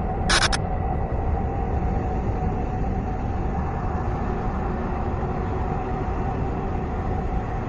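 Noise music: a dense, steady rumbling drone with a faint held tone in it, and one short bright hiss about half a second in.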